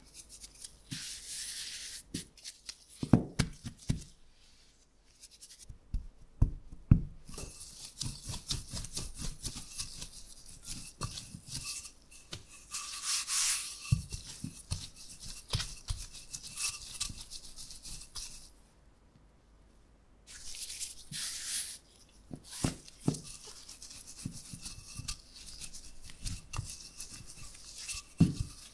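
Flour sprinkling onto a counter, then a wooden rolling pin rolling out butter-laminated puff pastry dough on the floured surface: a gritty rubbing and rolling with a few knocks of the pin against the counter.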